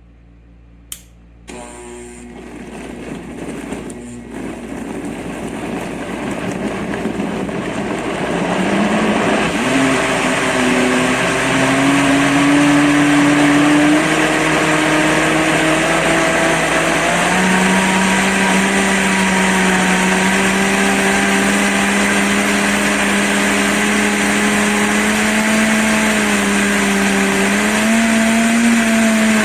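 PRASKY 2400-watt countertop blender switched on with a click about a second in. Its motor spins up over the next several seconds, then runs steadily at high speed with a loud whir whose tone wavers slightly.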